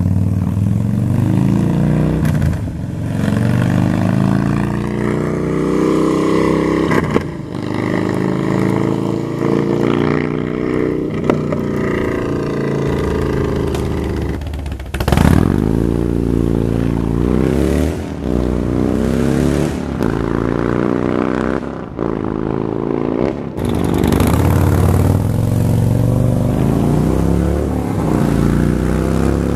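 Harley-Davidson Dyna's stock 96-cubic-inch V-twin running through an aftermarket 2-into-1 exhaust, its engine note rising and falling again and again as the throttle is opened and closed.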